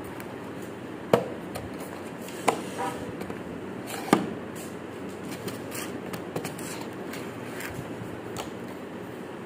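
A cardboard box knocked against and tipped over onto a hard floor by a baby's hands: three sharp knocks about a second and a half apart, the loudest about four seconds in as the box falls flat, then a few lighter taps. A steady background hiss runs underneath.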